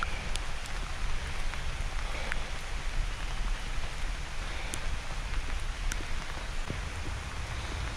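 Steady rain falling on foliage and a wet road, with a few sharp, irregular ticks of drops striking the camera over a low rumble.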